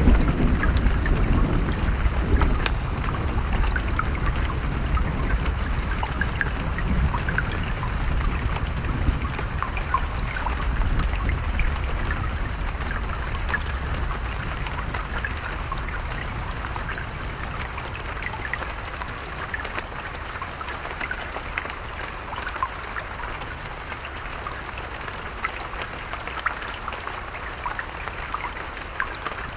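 Steady rain with many separate drops pattering and trickling. A low rumble of thunder dies away over the first half.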